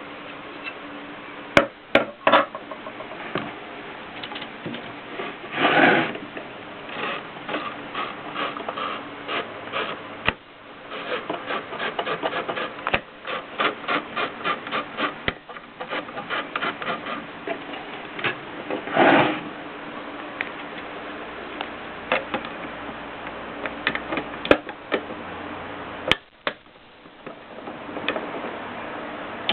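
Mercedes Superba typewriter being typed on: sharp key strikes in quick runs of a few per second, with two longer rasping mechanical sounds about six seconds in and near the twenty-second mark, then scattered single strokes.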